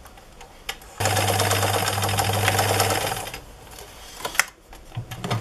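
Electric sewing machine stitching a seam through fabric: a steady motor hum with rapid needle clatter for about two seconds, then it stops. A few handling clicks follow, and the motor starts briefly again near the end.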